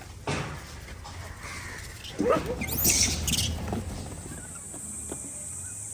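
A few short, sliding animal squeals and chirps, some of them high-pitched, about two to three seconds in. Then a steady high insect buzz comes in near the end.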